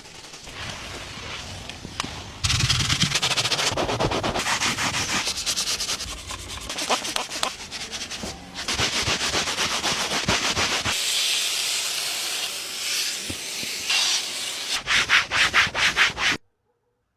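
Rapid, dense scrubbing strokes on a car surface during cleaning. It gets louder a couple of seconds in and ends with a run of separate strokes, about four a second, before cutting off suddenly near the end.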